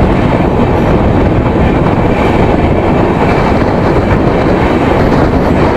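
Jan Shatabdi Express coach running at speed: a loud, steady rumble and rattle of wheels on the track.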